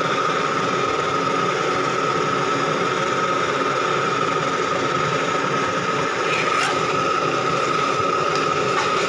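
Loud, steady mechanical drone with a constant high whistling tone running unchanged throughout, and faint scrapes of a metal ladle stirring thick rendang in an aluminium pan.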